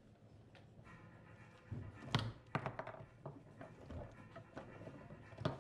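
Foosball in play: a quick, irregular run of sharp knocks and clacks as the ball is struck by the foosball men and bangs off the table, with the hardest hits about two seconds in and again near the end.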